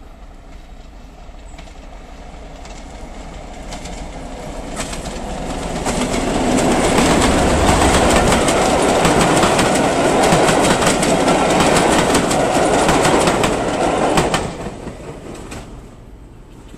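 Class 37 diesel locomotive, an English Electric V12, approaching and passing with a passenger train. The sound builds over the first few seconds, then the coaches' wheels clatter over the rail joints. It drops away sharply about fourteen and a half seconds in as the last coach goes by.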